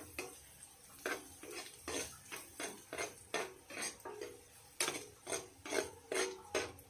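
A metal spoon scraping and stirring sautéed garlic and onion in a nonstick frying pan, in quick repeated strokes, about three a second.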